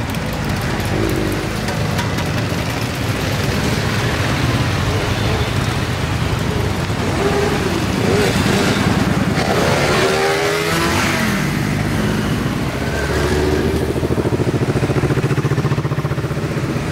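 A procession of motorcycles, cruisers and sport bikes, riding past one after another at low speed, engines running with occasional revs. About ten seconds in, one engine's pitch rises and then falls as it goes by.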